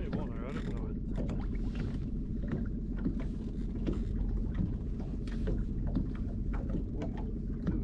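Boat motor running steadily at trolling speed, a constant low hum, with scattered clicks and knocks as a fish is handled in the landing net at the rail.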